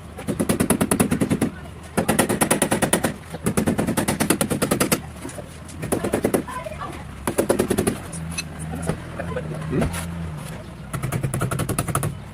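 Rapid rattling strikes from a power tool in bursts of about a second, roughly a dozen strikes a second, over a steady low hum.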